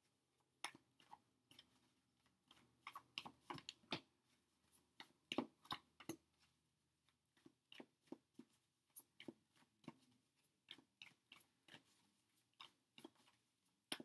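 A deck of tarot cards being shuffled by hand: quiet, irregular flicks and slaps of the cards, a few each second, with a short lull about halfway through.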